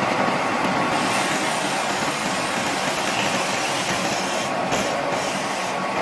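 Drill press running steadily with a Forstner bit boring into wood, the motor's hum mixed with the bit cutting.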